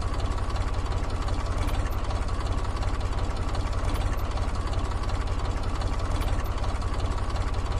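Tractor engine running steadily at idle with a rapid, even chugging beat.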